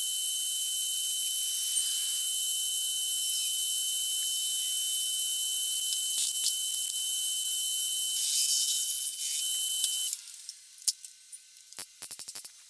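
A power tool running steadily with a high whine, cutting off about ten seconds in, followed by a few light clicks and taps.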